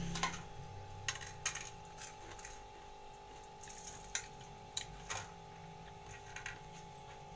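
Scattered light clicks and taps at irregular intervals, about nine in all, over a faint steady hum.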